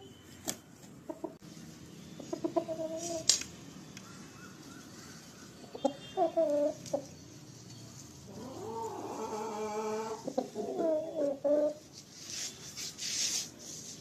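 Parrot-beak Aseel rooster clucking in short calls every few seconds, with one longer call that rises and falls about nine seconds in. A short rustling hiss comes near the end.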